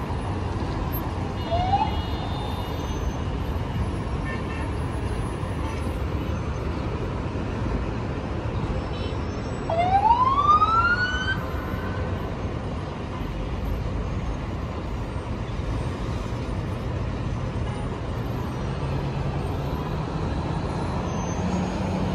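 Steady traffic noise from a jammed road, with a siren giving rising whoops: a brief one about two seconds in and a louder, longer one about halfway through. Near the end an engine note slowly rises in pitch.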